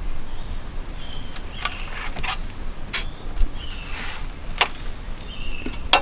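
Outdoor ambience: several short high chirps and a handful of sharp clicks over a steady low rumble.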